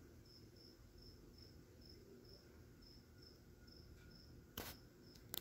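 Near silence, with a faint high-pitched chirp repeating steadily about three times a second. Two sharp clicks come near the end.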